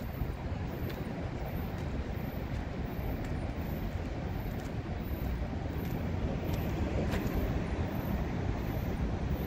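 City street ambience: a steady low rumble of passing traffic, with faint footsteps on pavement about once a second.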